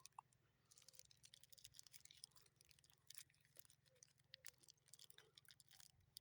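Faint close-up chewing of a Mars bar: many small irregular clicks and crackles.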